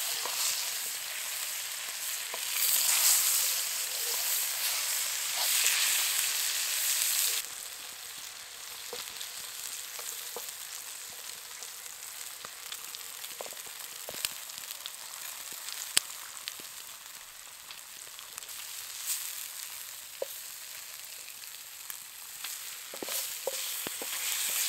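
Sausages, bacon and halved tomatoes frying in a large steel pan over a wood fire: a steady hissing sizzle. It is loud at first as tomato halves are set into the hot fat, drops suddenly about seven seconds in, then carries on quieter with occasional small pops.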